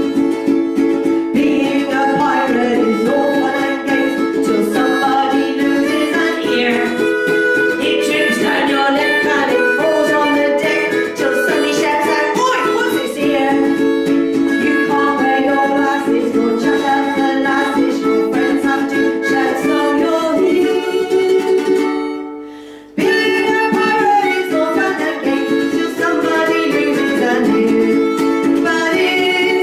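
Strummed ukulele with a harmonica playing the melody over it, an instrumental passage. About 22 seconds in the music fades out, then cuts back in abruptly a second later.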